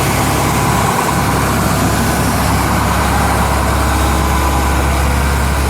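Large diesel farm tractor engine idling steadily with a deep low rumble.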